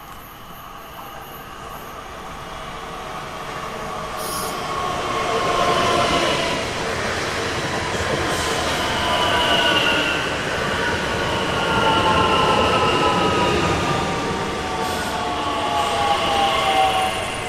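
A train approaching and passing close by. The sound grows louder over the first six seconds and then stays loud, with a rumble and several high tones that slowly fall in pitch.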